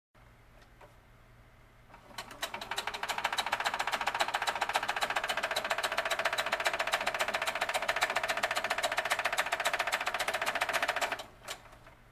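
Brother SC625 sewing machine stitching in a fast, even rattle, its bobbin hopping around in the drop-in bobbin case. It starts about two seconds in and stops abruptly near the end.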